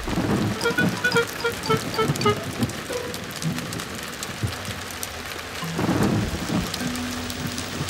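Cartoon rain sound effect: steady heavy rainfall with low rumbles of thunder, louder about six seconds in. Early on, a short run of quick musical notes drifts slightly downward over the rain.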